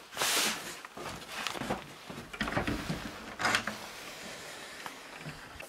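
Wooden door being pushed open and walked through: short scrapes, knocks and rustles, with a louder hissing scrape at the start and another a little past halfway.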